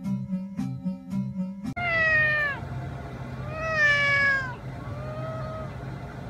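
Music with a plucked, even beat that cuts off about two seconds in. A white long-haired cat then meows three times, in drawn-out cries that fall in pitch; the last is the faintest.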